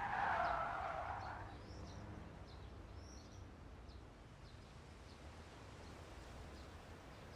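Quiet outdoor ambience. A soft whoosh fades away over the first second and a half, then faint, scattered bird chirps sound over a low rumble.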